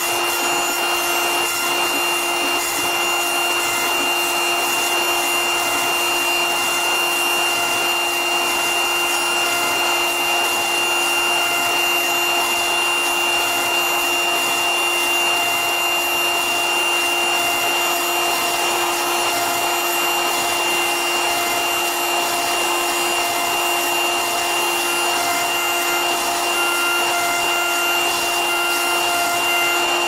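CNC router milling Styrodur extruded polystyrene foam with an extra-long R4 ball-nose cutter: a steady spindle whine over a continuous scraping hiss of the cutter in the foam, with a few fainter tones coming and going.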